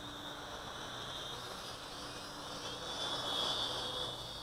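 Mini toy quadcopter's motors and propellers whining in flight, the pitch wavering with the throttle. It grows louder about three seconds in as it passes closer.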